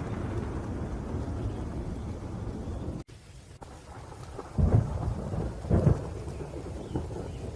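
Thunderstorm: a low thunder rumble over steady rain that cuts out abruptly for a moment about three seconds in, then two loud thunder claps about a second apart.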